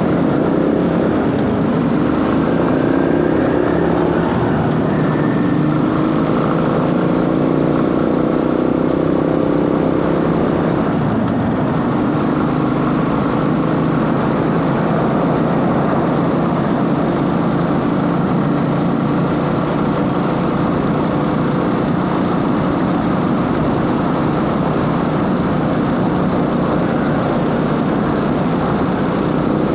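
Motorcycle running under way, its engine note mixed with drive-chain and intake noise. The pitch rises and falls over the first ten seconds or so, then holds fairly steady.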